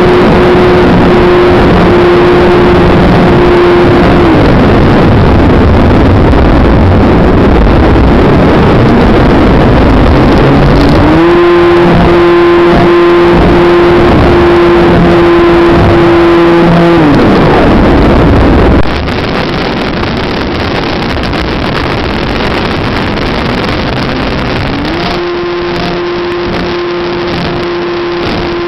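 In-flight sound from on board an electric RC model aircraft: heavy wind rush over the onboard camera's microphone, with the electric motor's steady whine coming and going as the throttle is worked. The whine dies away about four seconds in, rises back about eleven seconds in, falls away again about six seconds later and returns near the end; the overall level drops a little about two-thirds of the way through.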